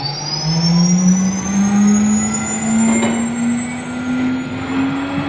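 ATC CNC router's spindle motor spinning up: a steady whine that climbs slowly in pitch as the spindle ramps up to cutting speed.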